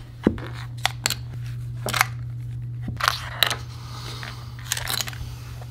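Small flat jigsaw puzzle pieces and their tray clicking and knocking as they are handled, shuffled and set down, a scattering of sharp clicks with the sharpest just after the start. A steady low hum runs underneath.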